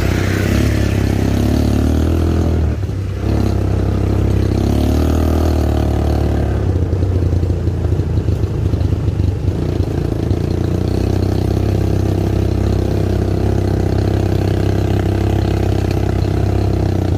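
ATV engine running under way, its note rising and falling over the first few seconds, with a brief drop about three seconds in and a steady low rumble throughout.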